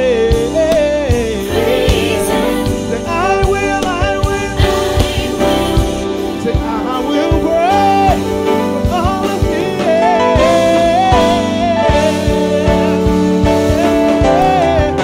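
Live gospel music: a male singer's long, wavering wordless vocal runs over band accompaniment with a steady beat.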